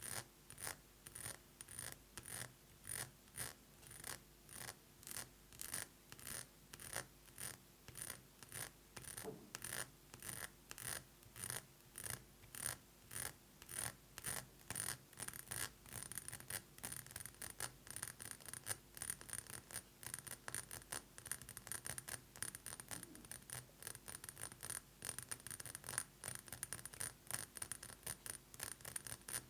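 Fingernails tapping fast on a perfume bottle, each tap with a bright high ring. The taps come in quick rhythmic runs, about two or three a second at first, then turn into a faster, almost continuous flurry from about halfway.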